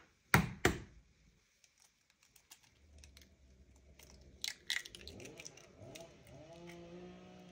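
An egg cracked open by hand over a plastic mixing bowl, with two sharp cracks about halfway through and then the shell pulled apart. Two louder clicks come just after the start, and faint pitched tones come in over the last couple of seconds.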